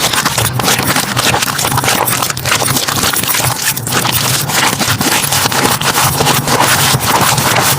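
Slime being squeezed and worked by hand, a dense run of crackling, clicking pops.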